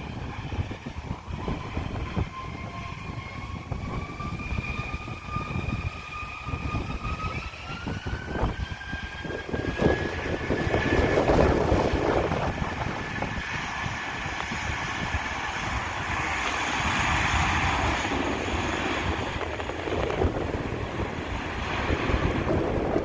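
Airbus A320 jet engines spooling up to takeoff thrust: a whine climbs steadily in pitch for about ten seconds, then gives way to a loud, steady roar as the aircraft accelerates down the runway. A low wind rumble on the microphone runs underneath.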